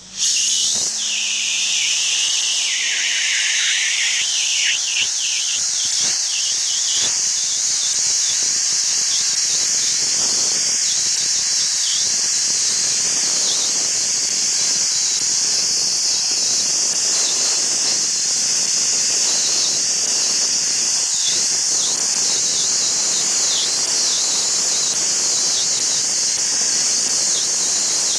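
Wet abrasive (dustless) blasting nozzle spraying a water-and-grit slurry onto an engine valve cover, stripping its green paint. It makes a loud, steady, high-pitched hiss that cuts in abruptly at the start and holds.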